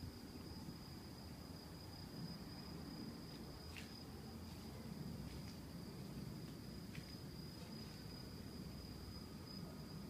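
Crickets calling as one steady high-pitched tone, with a few brief sharper chirps around the middle and a low rumble underneath. Beneath the crickets lies a quiet, constant, high-pitched whine of unknown origin, which the recordist likens to a small rechargeable fan running on low.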